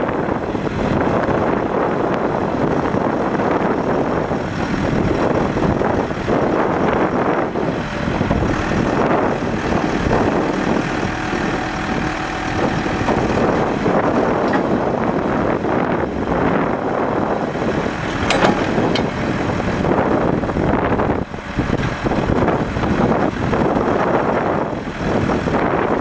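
John Deere 310D backhoe loader's diesel engine running steadily while the backhoe boom and bucket are worked on the hydraulics. A couple of brief clicks come about two-thirds of the way through.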